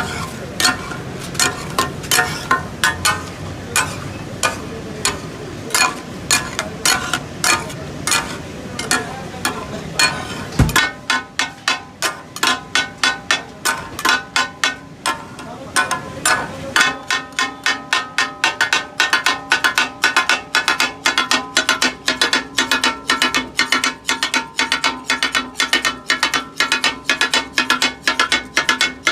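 Metal spatulas striking a flat iron tawa griddle as brain masala is chopped takatak-style: sharp, ringing clangs, about two a second at first, quickening to about three a second after the middle. A low background rumble under the first third stops abruptly.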